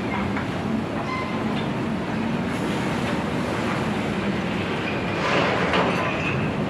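Steady machinery noise with a low hum from a TAKRAF portal grab crane at work loading stone. A louder rush of noise swells for about a second near the end.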